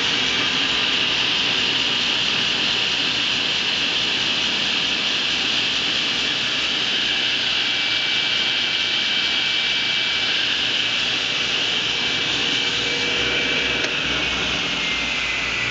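JET 16-inch table saw with a 7.5 hp motor and a 14-inch blade, running free at speed without cutting: a steady machine noise with a thin whine, quiet running for its size. About 14 seconds in the whine starts to drop in pitch as the saw begins to spin down.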